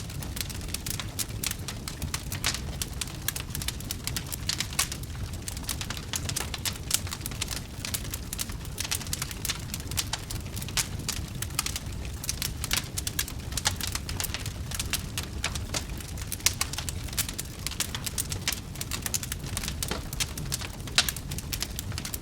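Wood fire burning with dense, irregular crackles and pops over a steady low rumble.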